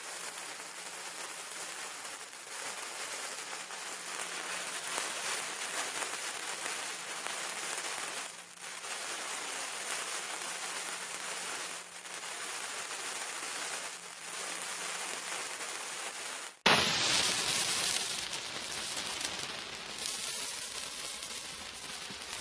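Lit fuses burning: a steady crackling, sizzling hiss that breaks off briefly every few seconds. About three-quarters of the way through, a sudden loud burst with a quick falling whoosh, then a louder sputtering sizzle.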